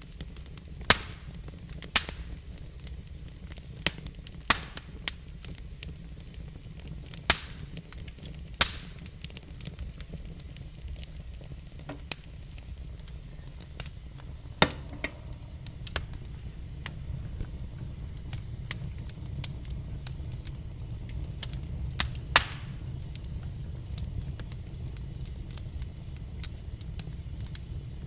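Logs burning in a fireplace: irregular sharp pops and crackles, several of them loud snaps, over a steady low rumble.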